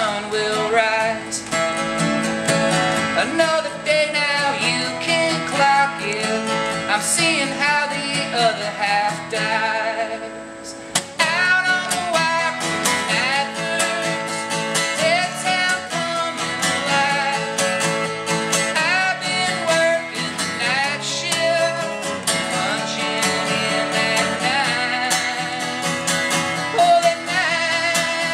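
A man singing a song while playing an acoustic guitar, live and unamplified, with a short lull about ten seconds in.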